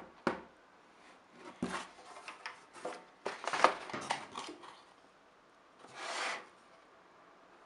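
Hands handling a large round metal rain shower head in its cardboard box: a few knocks and clicks against the cardboard, a burst of rustling and scraping about three and a half seconds in, and a short rubbing sound near six seconds.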